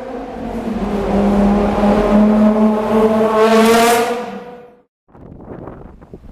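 Gemballa Avalanche's Porsche 997-based flat-six engine running loud under acceleration, its pitch rising slightly, then fading away just before five seconds in. After a break, a rougher, noisier sound follows.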